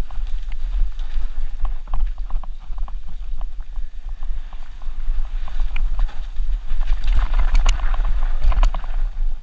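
Mountain bike clattering and rattling over rough dirt singletrack at speed, tyres crunching on dirt and leaf litter, with a steady low wind rumble on the microphone. A louder run of crackling clicks and scraping comes about seven to nine seconds in.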